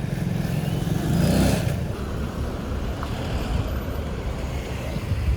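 Rented motor scooter running as it rides along, with wind rushing over the microphone; a louder rush swells about a second in.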